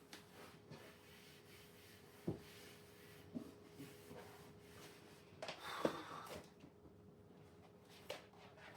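Faint knocks and a short clatter of kitchen items being handled and put down while cleaning, with a brief scrape or rub near the middle, over a faint steady hum.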